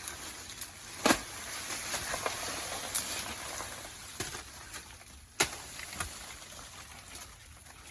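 A few sharp knocks or cracks, the strongest about a second in and another about five seconds in, over a steady outdoor hiss.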